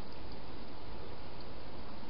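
Steady hiss of the trail camera's own microphone noise, with a couple of faint ticks.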